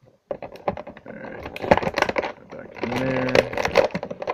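Plastic packaging and action-figure parts handled close to the microphone: a rapid, irregular run of loud clicks and crinkles, with a short pitched squeak about three seconds in.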